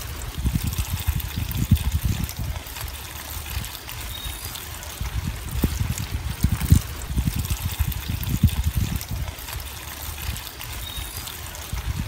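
A thin stream of water pouring and splashing into a bowl while hands rinse and stir leaves in it, with irregular splashes throughout.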